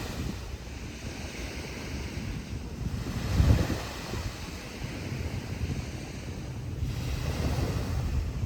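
Ocean surf washing on a beach, a steady rushing noise with low rumbling swells, the strongest about three and a half seconds in, and wind buffeting the microphone.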